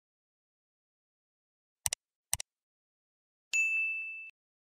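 Dead silence broken by two short clicks about half a second apart, then a bright chime near the end that holds one pitch and fades within a second: sound effects on animated on-screen graphics.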